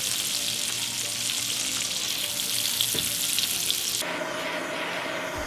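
Asparagus sizzling as it fries in melted butter in a pan: a loud, dense sizzle that turns quieter and changes character about four seconds in.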